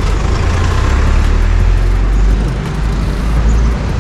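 Street traffic noise: a steady low rumble of motor vehicles with a hiss of road noise.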